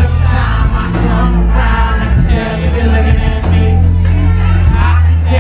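Live R&B concert music: a male singer singing into a handheld microphone over a band with keyboards and a heavy, steady bass line.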